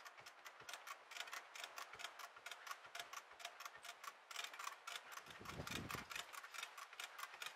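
Hand-operated come-along ratchet winch being cranked, its pawl clicking rapidly and evenly at about six clicks a second as it hauls a heavy load. A brief low rumble comes about five and a half seconds in.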